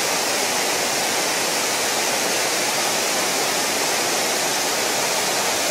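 Waterfall pouring in a wide curtain over a ledge into a stream pool: a steady, even rush of falling water.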